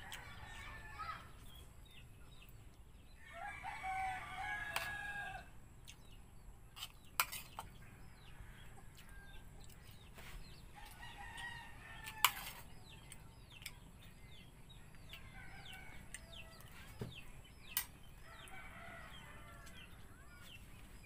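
Roosters crowing several times, the loudest crow about three to five seconds in, with small birds chirping and a few sharp clicks.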